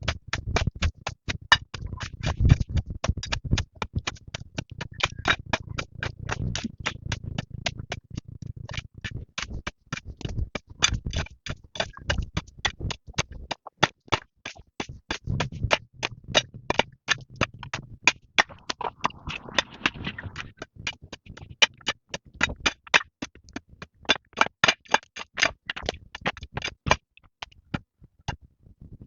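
Background music with a fast, steady percussive beat of sharp clicks, stopping near the end.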